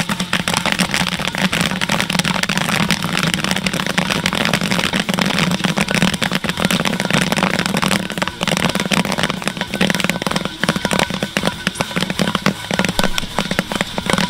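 Popcorn kernels popping in hot coconut oil in a large steel kettle corn popper, a dense rapid crackle of pops as a wooden paddle stirs the batch, over a steady low hum. The pops grow more spaced out in the second half.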